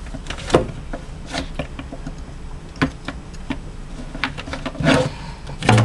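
Pet minks scrabbling about a cupboard floor among papers and cables: scattered light taps, knocks and rustles, with a louder knock near the end.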